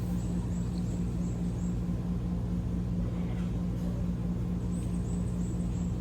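Steady low mechanical hum, like an idling engine or machinery, with a faint run of short high chirps twice.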